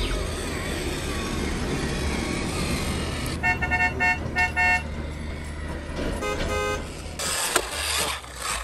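Huina remote-control toy dump truck driving over a board and through mud, with a steady run of motor and tyre noise. Two short horn toots come about three and a half seconds in, and another horn-like sound follows about two seconds later.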